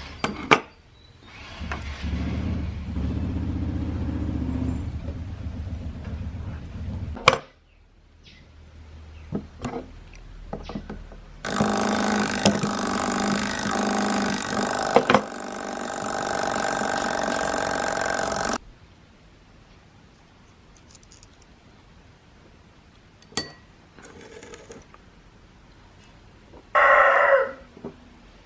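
Mechanical alarm clock's bell ringing continuously for about seven seconds, then cutting off abruptly. Earlier, a low hum runs for several seconds and ends with a sharp click, and near the end there is a short call.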